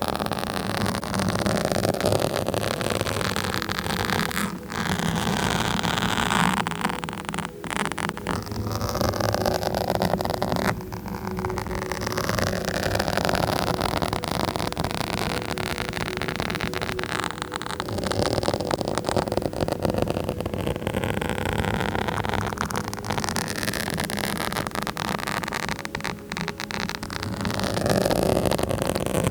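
A microphone being scratched close up: a continuous rough scratching noise whose tone sweeps up and down, with a few short breaks.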